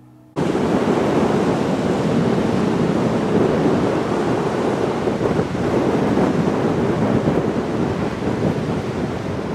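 Wind rushing and buffeting on a Sony AX53 camcorder's built-in microphone, mixed with waves on the shore, recorded with the camcorder's automatic wind-noise reduction switched on. It cuts in abruptly about half a second in and stays loud and steady.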